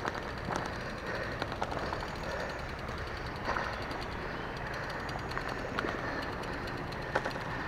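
Steady rush of a river flowing over stones, with a few short clicks and knocks from a mountain bike being pushed over a rocky path.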